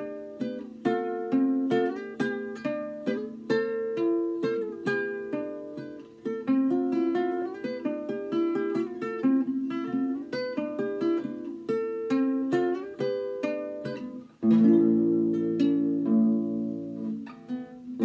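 Solo classical guitar playing an improvised folk-style tune in quickly picked single notes. About fourteen seconds in, it turns suddenly louder with full chords that ring on.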